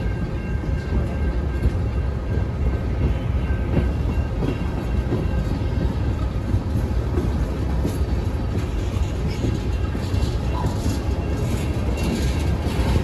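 Freight cars of a passing freight train rolling by at a grade crossing: a steady, heavy rumble of wheels on rail.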